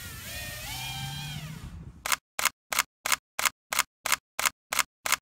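A quadcopter's motors whining, the pitch rising and falling as the throttle changes. About two seconds in this cuts off and a rapid, even series of camera-shutter clicks begins, about three a second.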